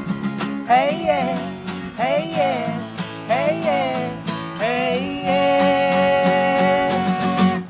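Two acoustic guitars strummed in a steady rhythm, under three short sung phrases and then one long held vocal note: an acoustic indie-rock song.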